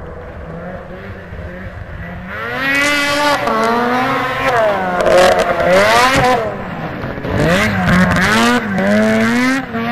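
Ski-Doo MXZ 440 race snowmobile's two-stroke engine revving up and down as it is ridden hard. It is fainter at first, grows louder about two seconds in, and its pitch rises and falls again and again.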